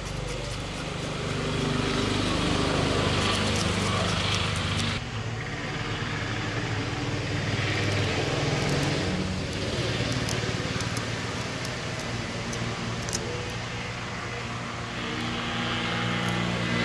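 An engine running, its pitch shifting now and then, with scattered light clicks and scrapes from a knife scaling fish and scissors trimming fins.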